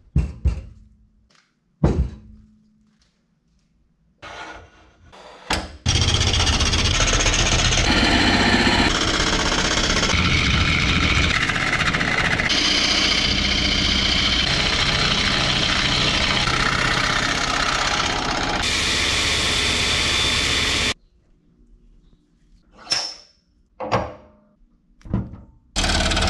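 A couple of knocks as a thick wood slab is handled on a workbench, then a wood lathe running while a bowl gouge cuts a large spinning bowl blank: a loud, steady cutting noise, with a quieter pause of a few seconds near the end.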